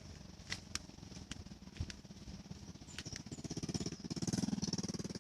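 A small engine running with a fast, even pulsing, growing louder to a peak near the end and then fading, with a few sharp clicks in the first two seconds.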